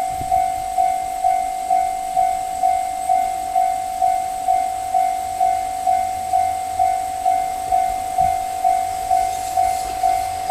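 Japanese level-crossing warning bell ringing, an even electronic clang about twice a second, which means a train is approaching and the crossing is closed. A low rumble builds beneath it in the second half.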